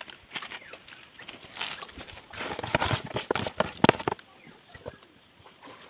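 Hands rubbing and squeezing wet, salted turtle meat in a plastic basin: a quick run of wet squelches and small knocks for about four seconds, the loudest near the end of that run, then it goes quieter.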